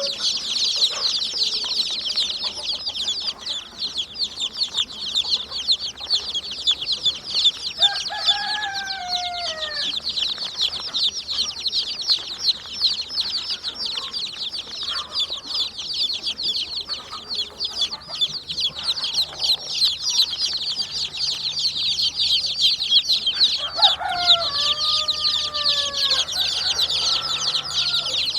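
A flock of chickens: a dense, continuous chorus of high-pitched peeping and chirping, with a couple of longer falling calls about eight seconds in and again near the end.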